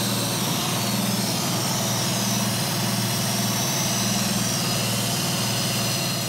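Toyota Vios engine idling steadily.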